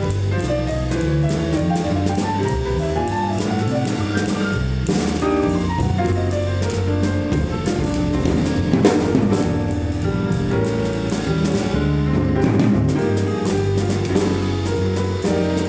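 Jazz piano trio playing live: grand piano, upright double bass and drum kit. The piano plays runs of single notes over the bass line while the drums keep time with cymbals.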